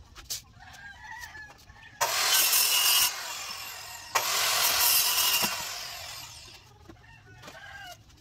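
Handheld circular saw cutting through a bamboo pole in two bursts. The first starts sharply about two seconds in, runs about a second and then winds down. The second starts with a click about four seconds in and dies away over the next two seconds.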